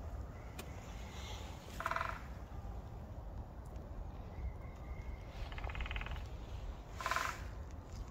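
Three short, pulsed animal calls, about two seconds in, near six seconds and about seven seconds in, over a steady low wind rumble on the microphone.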